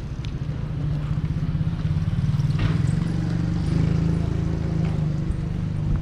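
A motor vehicle's engine running with a low, pulsing rumble. It grows louder from about a second in and drops away near the end, like a vehicle passing close by.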